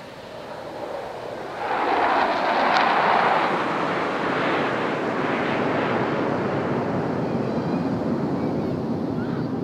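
Formation of F-16 Fighting Falcon fighter jets flying past overhead: a steady rushing jet roar that swells sharply about two seconds in and then holds.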